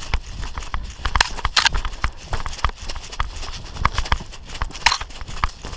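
Running footsteps: a quick, uneven patter of thuds and knocks, with a few louder rustling bursts of gear moving.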